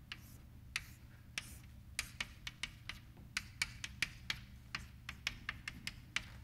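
Chalk tapping and clicking against a blackboard as lines and points are drawn: irregular sharp taps, several a second.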